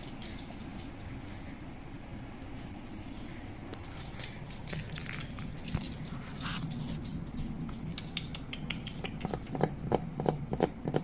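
Light clicks and taps of a Shiba Inu puppy's claws and paws on a wooden floor as it walks about, scattered at first and coming thicker and louder near the end, over a steady low hum.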